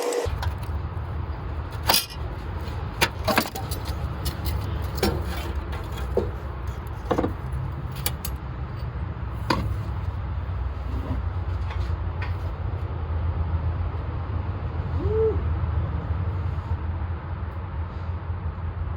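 Scattered sharp clicks and knocks of tools and metal parts as a starter motor is worked loose from a car, over a steady low rumble.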